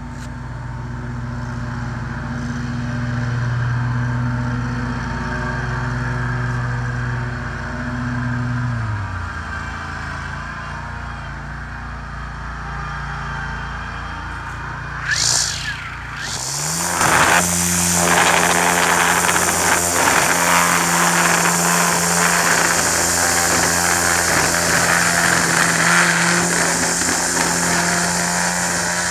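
A mower's engine running steadily, its pitch dropping about nine seconds in, with a short loud rush near the middle. About sixteen seconds in, a RYOBI 40V Whisper Series battery string trimmer spins up with a rising hum, then runs steadily with its line hissing through tall centipede grass.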